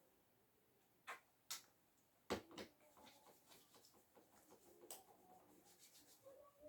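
Near silence broken by several short, sharp clicks and knocks, the loudest a little over two seconds in.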